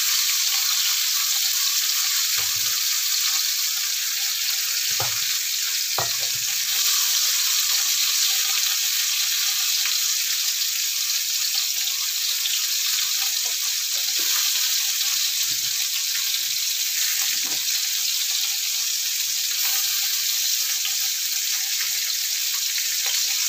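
Red snapper heads frying in hot oil in a pan: a steady sizzle with a few faint pops or knocks here and there. The fish is still frying, not yet crisp.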